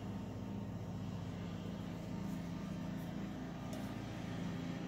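A steady low mechanical hum, even in pitch and level, with a few faint light ticks.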